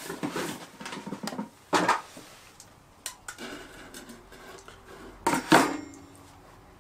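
Metal knocks and clatter as a Coleman 533 Sportster single-burner camp stove is lifted and set down on a board. The loudest clunk comes about five seconds in, with a short metallic ring after it.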